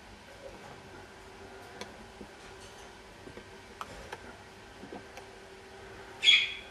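Pet budgerigars: a few faint scattered ticks, then one short, loud budgie chirp near the end.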